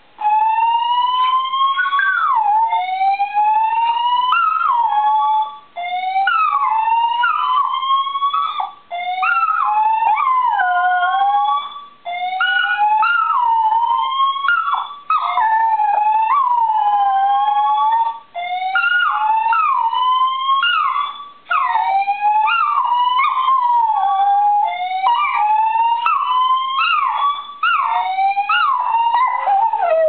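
Dachshund howling along with a building fire alarm: long, wavering howls that rise in pitch and break off, phrase after phrase with short pauses between, over the alarm's repeating tone.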